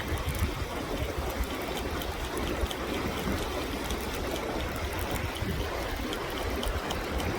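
River water running steadily over rocks, with a low rumble underneath and faint scattered ticks.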